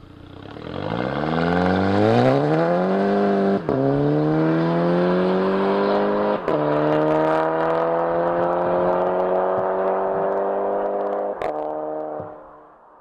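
A Volkswagen GTI's turbocharged four-cylinder engine accelerating hard as the car drives away. The revs rise and drop sharply at two upshifts, then the sound fades as the car draws off.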